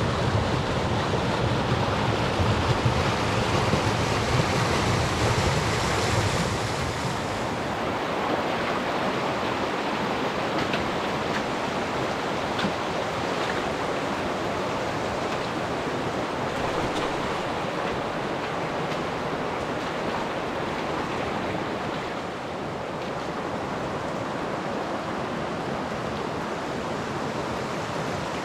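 River water rushing: a steady, noisy flow, louder and deeper for the first seven seconds or so, then evening out.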